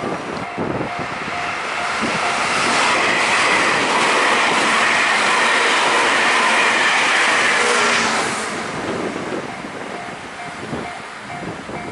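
A train passing close by at speed: its noise builds over the first couple of seconds, holds steady, then falls away about eight seconds in.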